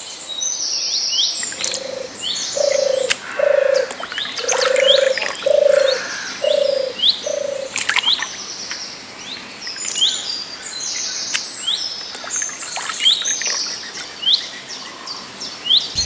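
Outdoor birdsong: short rising chirps repeated about once a second, with other bird phrases over them. In the first half a series of about seven low, evenly spaced calls repeats roughly every 0.8 s. A few small splashes come from hands working in shallow muddy water.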